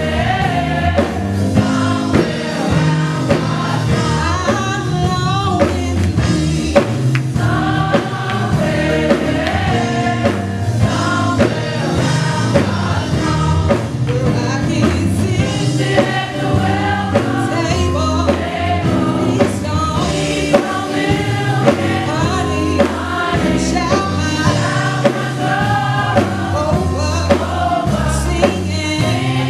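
Youth gospel choir singing into microphones, several voices together over an accompaniment with steady low notes and a regular beat.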